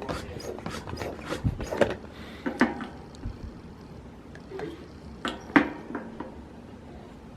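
Rhythmic scraping or rubbing strokes, about four a second, that stop about two seconds in, followed by a few scattered knocks and clicks.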